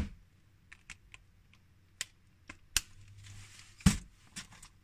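Light plastic clicks and taps of LEGO Technic parts being handled as the buggy's wheels are fitted, with one louder knock about four seconds in.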